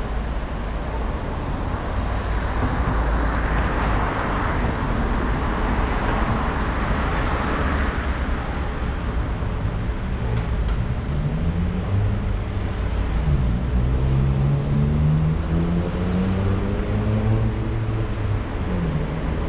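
Car driving through town streets: steady low engine and road rumble, with a swell of tyre and traffic noise a few seconds in. In the second half an engine note rises and falls in pitch several times.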